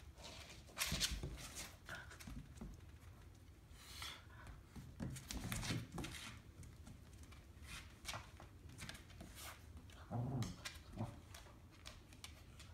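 An American Eskimo puppy and a Finnish Spitz playing tug of war over a toy: irregular scuffling and claw clicks on a vinyl floor, with a few short low growls about halfway through and again near the end.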